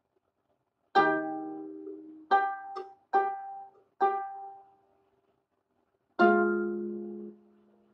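Small wooden harp played slowly: a handful of separate plucked notes and chords, each ringing and fading, with a pause before a final chord about six seconds in that rings for about a second and is then cut short.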